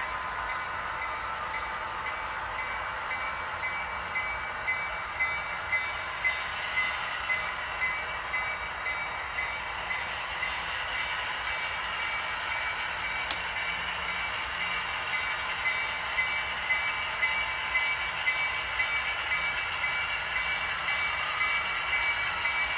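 HO scale model freight train rolling past: a steady running noise of wheels on track, with a run of regular clicks, about one or two a second, as the cars' wheels cross rail joints.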